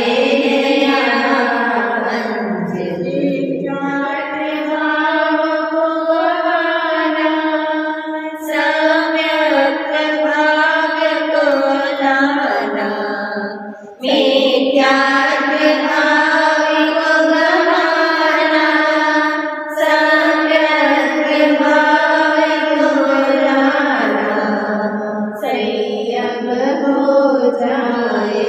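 Background music: a devotional song, a voice singing long, drawn-out melodic notes, with a short break about halfway.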